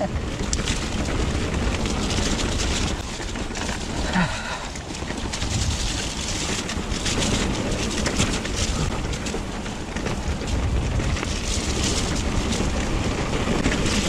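Mountain bike riding down a wet trail, heard from a chest-mounted camera: wind buffeting the microphone over the hiss of tyres on wet ground, with short rattles and knocks from the bike over rough ground.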